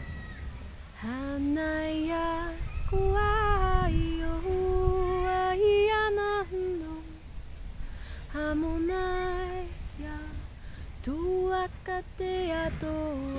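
A woman singing wordless light language a cappella. She holds long, sustained notes in three phrases and slides up into several of them.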